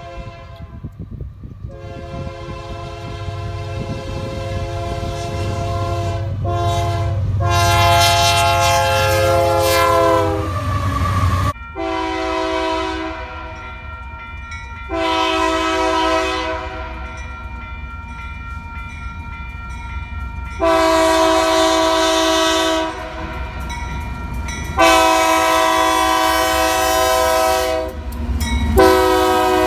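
Union Pacific GE AC4400CW locomotives sounding Nathan K3-family multi-chime air horns in a series of long blasts over the low rumble of an approaching freight train. The horn from a second train starts abruptly about a dozen seconds in and gives four long blasts.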